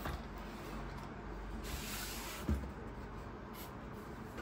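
Hands handling a cardboard doll box tray: light rustling and sliding of cardboard, with a soft thump about two and a half seconds in.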